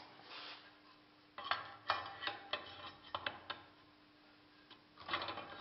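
Metal moulding flask being set onto the lower flask of a sand mould: a quick series of light knocks and clicks in the middle, over a faint steady hum.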